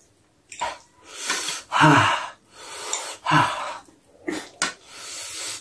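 A man eating spicy ramen noodles close to the microphone: a run of short, breathy slurps and sharp breaths, about eight in all, with a couple of short low voiced grunts about two and three and a half seconds in.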